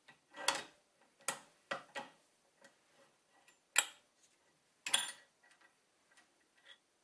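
Bolt of a Savage Model 111 bolt-action rifle being worked by hand: a series of sharp metallic clicks and clacks as the bolt is opened and closed on a case or gauge in the chamber, checking the headspace of a newly installed barrel. The loudest clacks come about a second, four seconds and five seconds in, with lighter ticks near the end.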